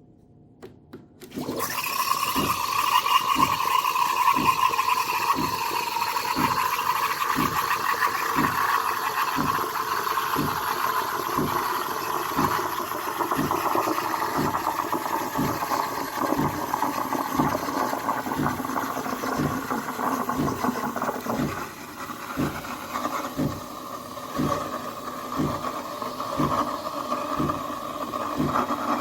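De'Longhi Dedica espresso machine's steam wand frothing milk: a sudden loud hiss and gurgle starts about a second and a half in and runs on steadily, under a regular low pulsing a little under twice a second from the machine's pump.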